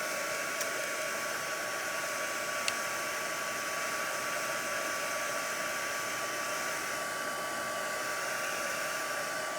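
Handheld hot-air blower running steadily to dry wet paint: an even rush of air with a steady fan whine, cut off at the very end as the whine falls away.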